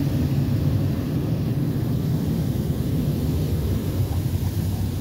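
Automatic car wash's high-pressure water jets hitting the car, heard from inside the cabin as a loud, steady low rumble.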